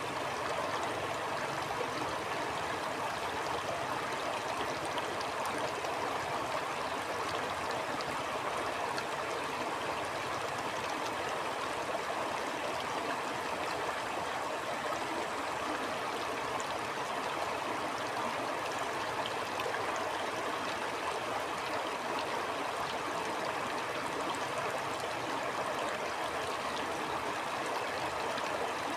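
Stream water flowing steadily over rocks, an even rushing and babbling.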